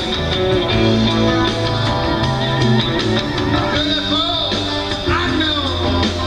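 Live rock band playing, with drums, bass guitar and electric guitar. Several pitch-bending lines sound about four and five seconds in.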